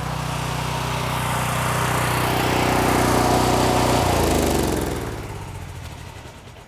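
Gasoline engine of a 4,000 PSI pressure washer running steadily and growing louder, then switched off about four seconds in and winding down to a stop.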